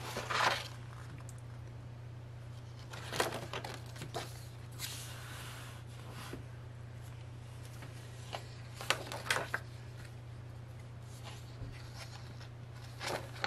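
Paper handling: a handful of short rustles as the pages of a photo book are turned and handled, over a steady low hum.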